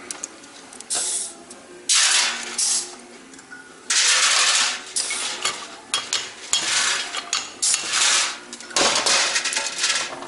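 A hammer striking a tool set on the valve spring retainers of a VW AWP cylinder head, popping the valve keepers loose: a series of sharp metal-on-metal strikes, each followed by a clattering ring.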